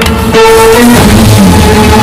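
Loud background music with drums and held tones, dipping briefly just after the start.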